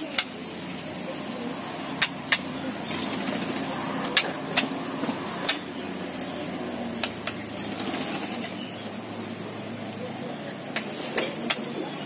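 White-rumped shama giving sharp clicking calls, about a dozen at uneven intervals, with a few faint short whistled notes, over a steady low background hum.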